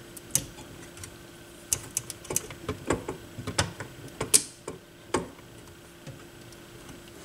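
Irregular clicks and taps of small parts and wires being handled as the Philips 212 turntable's circuit board is fitted back into its chassis. The clicks bunch up in the middle, the sharpest about four seconds in, over a faint steady hum.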